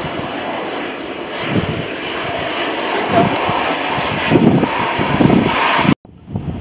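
Airbus A380's four jet engines running as the airliner taxis, a steady loud rushing with irregular low gusts of wind on the microphone. The sound cuts off suddenly near the end, and fainter wind noise follows.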